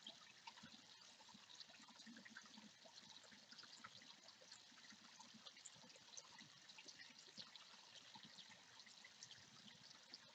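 Faint, steady trickle of pond water, with a continuous patter of small drips and splashes.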